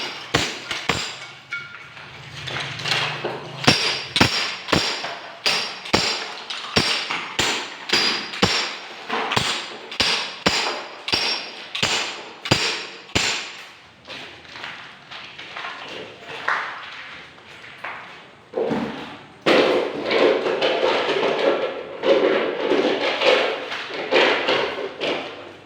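Repeated hammer blows, about two a second, each with a short metallic ring. After a lull, a denser stretch of rapid knocking and scraping follows.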